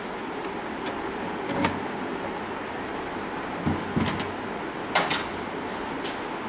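A few sharp clicks and knocks of banana-plug patch leads being handled and plugged into the sockets of a transistor amplifier trainer board, most of them bunched together past the middle, over a steady hiss.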